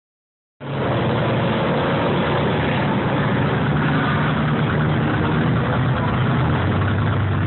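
Desert race vehicle's engine running steadily and loudly, starting about half a second in.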